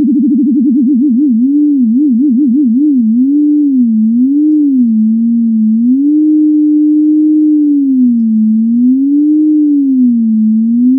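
Pure sine-wave tone from a simple software synthesizer, held at middle C (about 262 Hz), its pitch wobbling in vibrato from a sine-wave LFO. The wobble starts very fast and slows steadily as the LFO rate is turned down, briefly holds steady about halfway through, and then becomes slow, wide swoops a couple of seconds apart.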